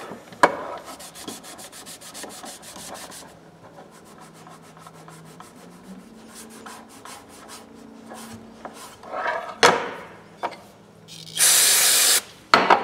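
Cloth rag rubbing and scrubbing over the plastic-dipped handles of a pair of oil filter pliers in quick, scratchy strokes. Near the end comes a short, loud hiss of aerosol carburetor cleaner sprayed onto the rag.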